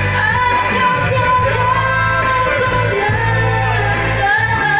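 A woman singing a melody with long held notes into a microphone, amplified over a PA along with a musical accompaniment that has a steady bass line.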